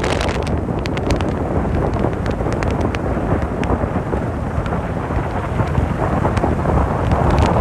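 Wind buffeting the microphone and road noise from a car driving along a highway: a steady low rumble with scattered small clicks.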